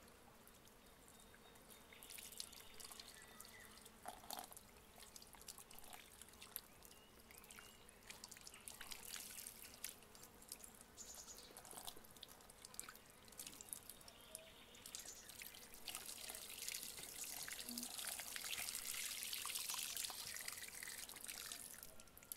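Water running from a garden hose and splashing and dripping over a gutted whole fish as it is rinsed. The flow is faint, with scattered drips, and grows louder in the last few seconds.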